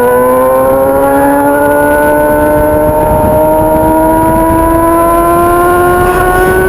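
Honda Hornet motorcycle's inline-four engine running through a 3-inch aftermarket exhaust under way, its pitch climbing slowly and steadily as the bike pulls up through the revs in one gear.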